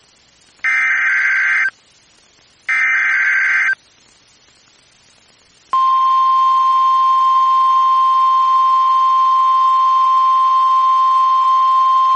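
NOAA Weather Radio alert opening: the last two of three SAME digital header bursts, each about a second of buzzy data with a second's gap between them. About two seconds later the steady 1050 Hz warning alarm tone starts and holds; it is the signal that switches on alert receivers before a new warning is read.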